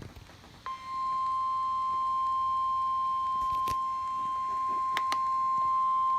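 NOAA Weather Radio warning alarm tone: a single steady 1050 Hz tone that starts about a second in and holds unbroken, signalling that a new warning (here another special marine warning) is about to be broadcast. A few faint clicks sound over it.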